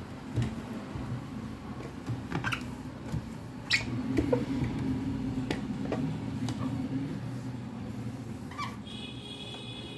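A damp cloth wiping a refrigerator door: rubbing and scattered small knocks over a steady low hum, with a short high squeak near the end.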